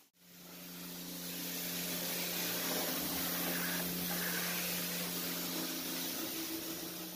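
High-pressure washer wand spraying water against a car's side panel and wheel: a steady hiss of spray over a steady low hum.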